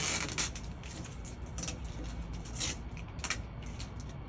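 Masking tape being peeled off window glass: a short tearing rasp at the start, then a few brief crackles as the tape is handled.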